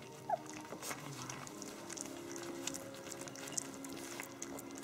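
Three-week-old puppies lapping and licking at soft mash in a ceramic dish: a run of small wet clicks and smacks, with a short squeak about a third of a second in.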